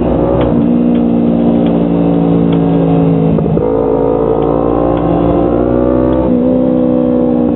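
Motorcycle engine running at steady speed while riding, its note shifting about three and a half seconds in and again about six seconds in.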